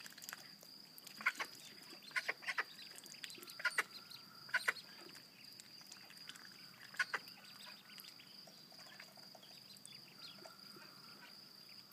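Call ducklings peeping: short, high peeps scattered every second or so, thinning out after the first seven seconds. A faint, steady high-pitched tone sounds underneath.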